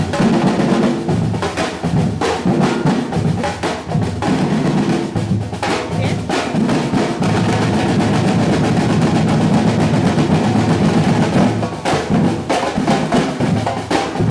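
Batucada percussion group playing: massed snare and bass drums in a dense, fast rhythm that settles into an even roll for a few seconds in the middle.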